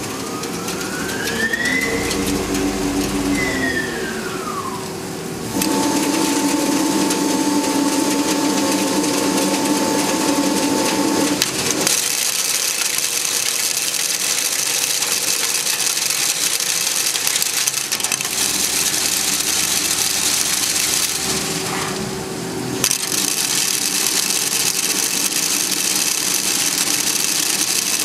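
CyberTec UltraTurn UT250 CNC lathe machining under flood coolant. The spindle whine rises and then falls in pitch over the first few seconds, and a steady tone holds for about six seconds. After that a steady hiss of cutting and coolant spray sets in, with a brief dip about three-quarters of the way through.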